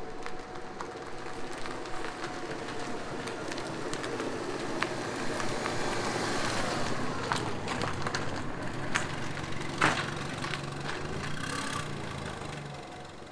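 A Fiat 500 small car approaches and pulls up, its tyre noise building to a peak through the middle. A low engine note comes in during the second half and eases off near the end as the car stops, with a few sharp clicks along the way.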